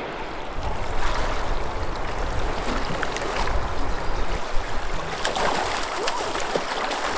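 Swift river current rushing around wading legs, with a few sharp splashes about five seconds in as a salmon thrashes in a landing net.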